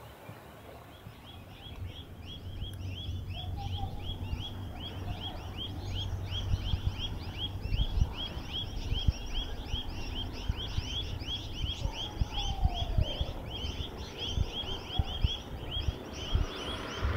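A bird calling in a long, fast run of short, high chirps, several a second, over a low rumbling background noise.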